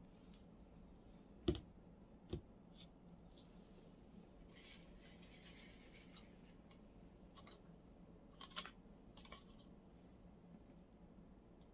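Faint handling noises at a worktable: a glass measuring cup set down on the metal table top with two knocks about a second and a half in, a soft scraping rustle in the middle, and a few light clicks later on.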